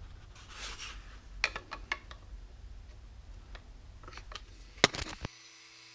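Hard resin figure parts clicking and tapping together as an arm is pressed and worked onto the torso, where a magnet in the shoulder socket is meant to snap it in place. Clicks come in small clusters, the sharpest a little before the end, then the sound cuts off abruptly.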